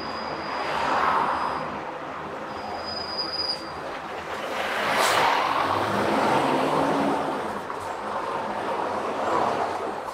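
Road noise from a moving car: a steady rush of tyres and wind that swells three times as vehicles pass, loudest about five seconds in. A thin high whistle sounds briefly twice in the first few seconds.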